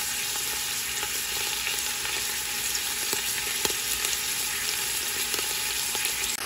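Beef bottom round roast searing in hot oil in a stockpot to brown its sides: a steady sizzle with scattered small pops, one sharper about halfway through.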